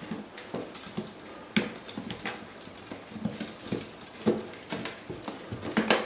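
Kittens playing and wrestling on a tiled floor: irregular soft thumps, taps and scuffles, with a sharper knock near the end.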